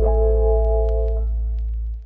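Background music: a sustained synth chord over a deep bass note, with light ticking percussion, fading out at the end.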